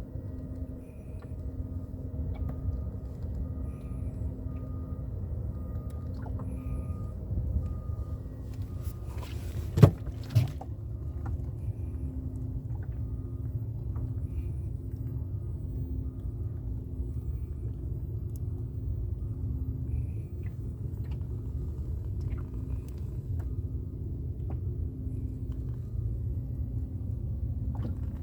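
Boat engine running steadily with a low rumble and a faint, evenly pulsing hum. Two sharp knocks come about ten seconds in.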